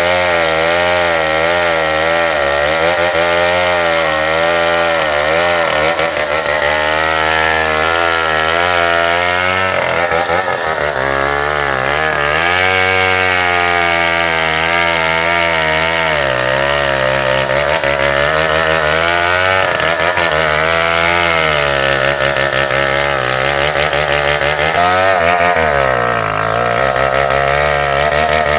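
Tecogold 700 two-stroke chainsaw running at full throttle while cutting bengkirai hardwood. Its engine pitch keeps dipping and climbing back as the chain bogs in the cut and frees up.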